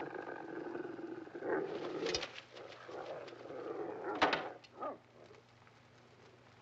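Wolves growling and snarling from a pit in uneven bouts, with a couple of sharper outbursts, dying down to near quiet about five seconds in.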